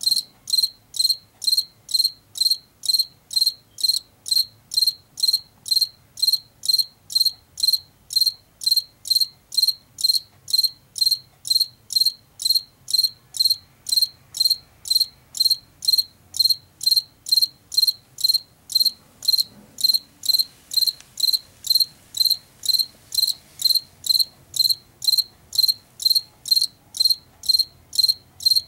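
Male field cricket chirping by rubbing its raised forewings together: a steady, high-pitched calling song of about two chirps a second, the song males make to attract females.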